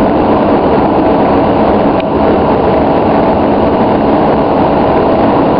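Steady engine and airflow noise of an airliner, heard from inside the cabin.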